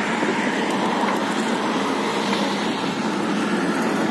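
Steady noise of road traffic passing.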